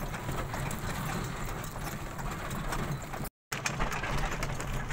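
Vehicle rolling slowly over a rough, rutted dried-mud road, heard from inside its covered cabin: a steady low rumble with rattling clicks. The sound drops out for a moment a little after three seconds in.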